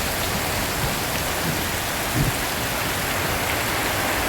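Heavy rain falling on a tin roof, a steady dense hiss, with one brief low thump about two seconds in.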